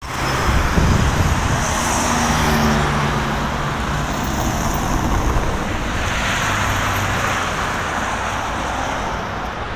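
Busy city road traffic: cars and vans passing close by, with engines running and tyre noise on asphalt. An engine hum stands out in the first few seconds.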